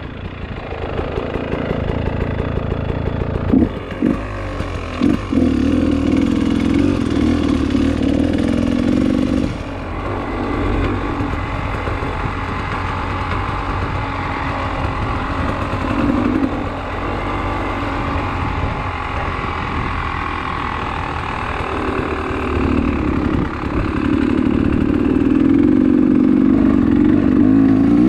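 Beta enduro dirt bike engine running as it is ridden along a gravel dirt road, its note rising and falling with the throttle, with a steady rush of wind and tyre noise over it.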